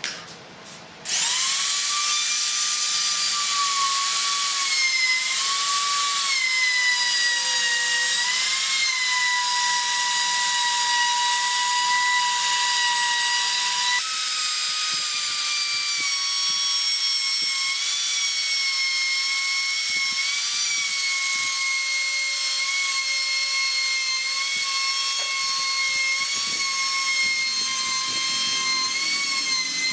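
Compact trim router starting up about a second in and running at high speed, a steady high whine that dips slightly in pitch now and then as the bit cuts a groove along a wooden frame rail. The pitch steps slightly higher about halfway through.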